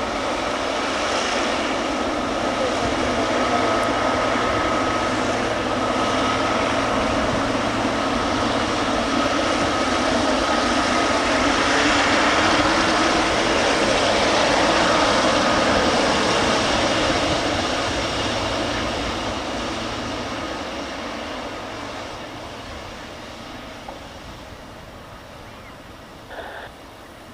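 Jet engines of a Boeing 777F freighter passing by: a loud roar with a steady whine in it, building to a peak about halfway through and then fading away.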